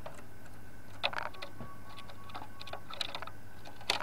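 Short clusters of sharp clicks and taps from a caged zebra dove moving about on its wooden perch: a burst about a second in, another about three seconds in and a louder one near the end.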